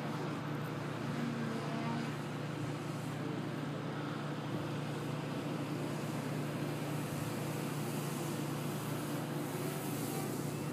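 Steady low drone of distant road traffic, even and unchanging throughout.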